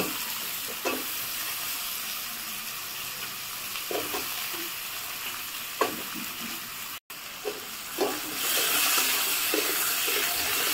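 Cut potato pieces sizzling as they fry in hot oil in a black iron kadai, with a few light utensil knocks from the spatula and steel bowl. The sizzle grows louder in the last couple of seconds.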